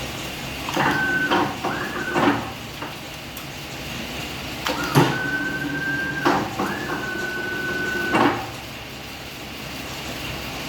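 CNC wire bending machine working through its cycle: motor whines that rise quickly and hold one pitch, the longer ones for a second or two, each ending in a sharp knock. These run over a steady machine hum, with a short pair about a second in and a longer pair in the middle.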